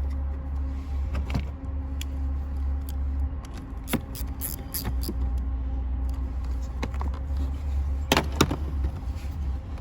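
Scattered clicks and clunks of plastic covers and fittings being pushed back into place on a BMW blower motor housing, the loudest a few knocks about four seconds in and again about eight seconds in, over a steady low hum.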